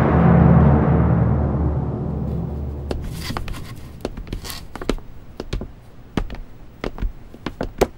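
Dramatic music with timpani fades out over the first two seconds or so. It is followed by irregular knocks, taps and short rustles as cardboard boxes are carried and set down.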